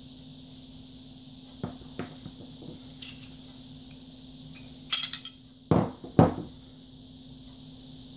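Small metal and polymer parts of an M&P45 Shield pistol clicking as they are handled during takedown. About five seconds in comes a sharp metallic clink, then two heavier knocks of parts being set down on the countertop. A steady low hum runs underneath.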